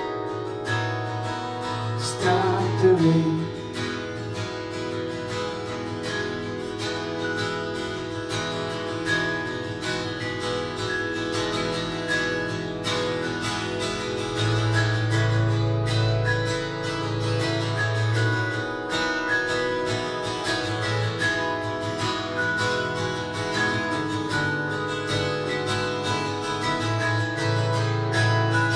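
Instrumental passage of a live band: guitar and keyboard playing together over a recurring low bass note pattern. A brief louder, wavering swell comes about two to three seconds in.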